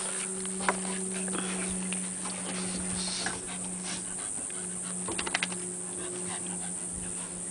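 A rat terrier and a pit bull play-wrestling on a wooden deck: dogs panting and paws scuffling on the boards, with a quick run of short strokes about five seconds in, over a steady low hum.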